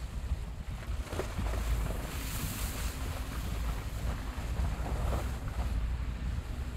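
Car driving on a snow-cleared mountain road: a steady low rumble of engine and tyres with wind buffeting the microphone.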